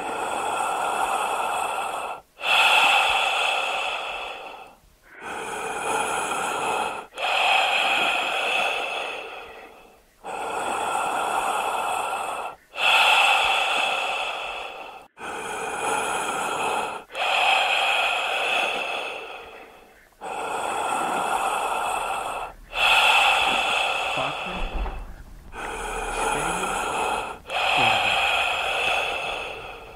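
Slow, deep human breathing close to the microphone: long, noisy in- and out-breaths of two to three seconds each, one after another with short pauses between, about a dozen in all.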